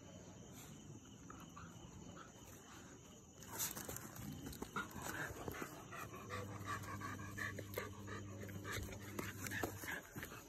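Dogs play-fighting, panting and whining, with short irregular sounds starting about three and a half seconds in. A low steady drone joins in the second half.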